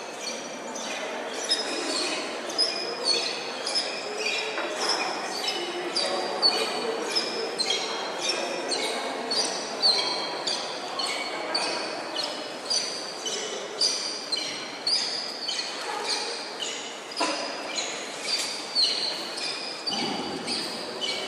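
Quick metallic ringing strikes at shifting pitches, about two or three a second, over the murmur of a crowd in a large, echoing church.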